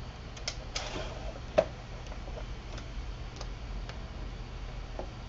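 Scattered irregular clicks and light knocks, the loudest about one and a half seconds in, over a low steady hum: handling noise as the camera is moved and set beside the sewing machine.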